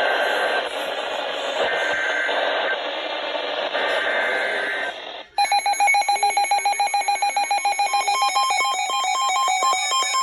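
Weather radio alert audio: a harsh hiss with a faint tone coming and going, then about five seconds in it cuts abruptly to a rapid electronic alarm beeping in several tones at about five pulses a second.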